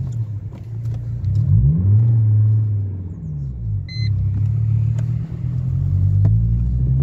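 Mercedes-Benz car engine heard from inside the cabin while driving, loud and rumbling; its pitch rises as it is given throttle about a second and a half in, eases off, then holds steady. The owner puts the unusual, loud note down to something having gone wrong with the exhaust. A short electronic beep sounds about four seconds in.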